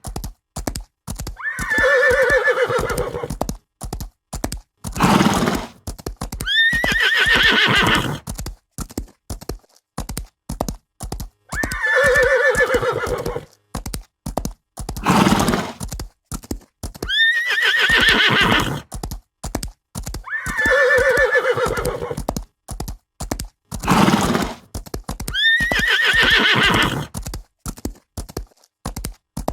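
Horse whinnying again and again, each whinny about one to two seconds long, with short snorts between them, over a steady clip-clop of hooves. The same sequence repeats about every ten seconds.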